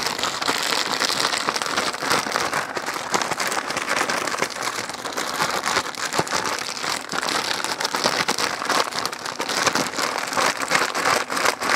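A one-gallon zip-top plastic bag of raw chicken wings being shaken hard, the plastic crinkling and rustling continuously with the wings tumbling inside. The wings are being coated in baking powder.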